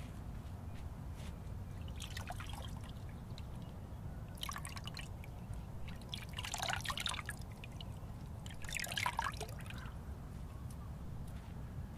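Water splashing and trickling as a hand works in a container of water, in four short bursts, the third the loudest.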